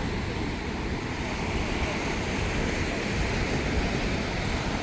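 Steady wind buffeting the microphone over the wash of sea surf, a continuous rushing noise with a gusty low rumble.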